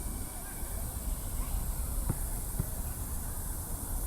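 Outdoor ambience: a steady low rumble and high hiss, with faint distant voices and two light knocks a little after two seconds in.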